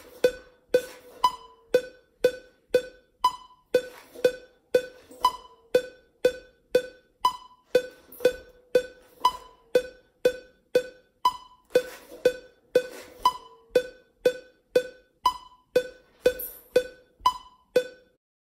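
A metronome clicking steadily at about two beats a second (120 BPM). A few faint, brief sizzles from hand-held marching crash cymbals come between some of the clicks.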